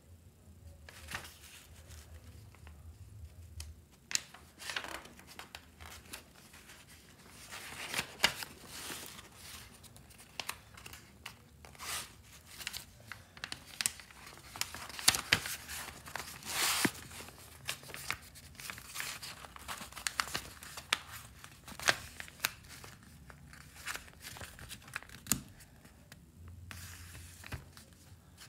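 Sheets of paper rustling and crinkling as the pages of a hand-made paper book are handled and turned, with irregular sharp crackles throughout, densest in the middle.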